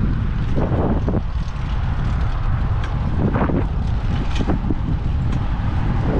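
Wind buffeting the microphone on a moving bicycle, a steady low rumble with a few brief knocks or rattles over it.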